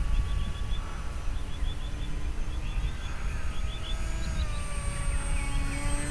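Whine of an RC model A-10 Warthog jet's engines passing overhead, its pitch slowly sliding, over a low rumbling noise. Birds chirp in short quick runs of four or five notes.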